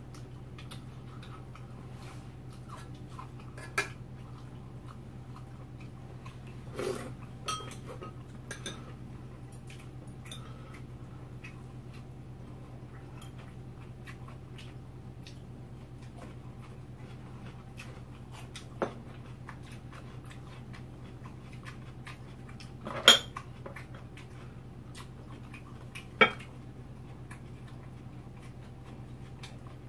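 Spoons and chopsticks clinking against bowls and a metal stew pot during a meal: scattered sharp clinks, the two loudest late on, over a steady low hum.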